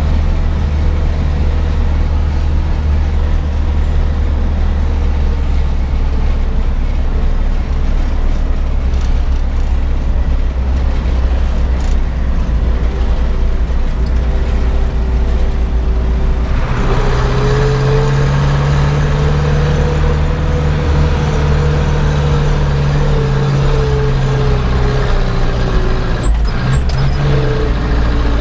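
Zetor 7011 tractor's four-cylinder diesel engine running steadily under way. Well past halfway, the revs rise and the note climbs a little, then eases off, with a few sharp clicks near the end.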